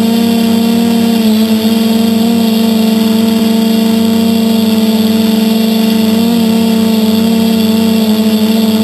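Motors and propellers of a DJI F450-clone quadcopter, heard from the camera mounted on its frame, running as a loud, steady pitched hum as it climbs. The pitch shifts slightly about a second in and again about six seconds in.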